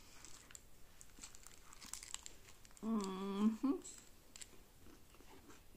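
Eating a paper-wrapped flatbread wrap: faint crinkling of the paper wrapper and chewing, with a short closed-mouth 'mmm' hum about three seconds in, the loudest sound here.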